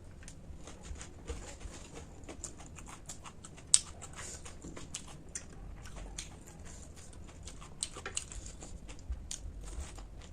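Close-up eating sounds: a person chewing and biting crunchy snack food, an irregular run of small crunches and clicks with one sharper crack a little under four seconds in.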